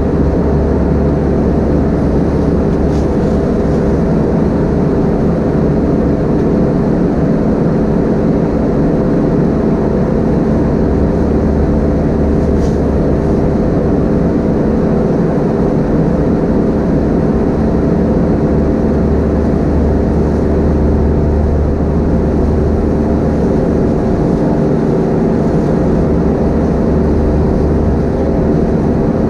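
Airbus A320-232 cabin noise in flight: a steady, loud drone from its IAE V2500 turbofan engines and the airflow, with several constant low hums and no change in pitch.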